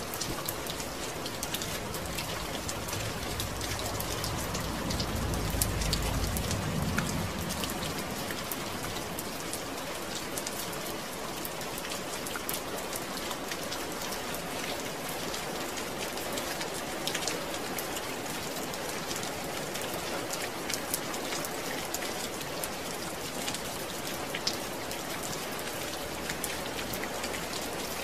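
Steady rain falling, an even hiss of drops with many scattered sharper drip ticks. A low rumble swells and fades about four to seven seconds in.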